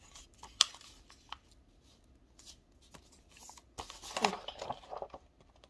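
Sheet of paper being folded and creased by hand into a paper airplane: scattered soft rustles and clicks of the paper, busier and louder about four seconds in.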